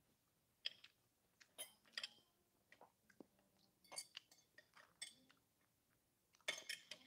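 Metal knife and fork clinking and scraping against a plate while cutting a donut: scattered short clinks, some ringing, with a denser cluster near the end.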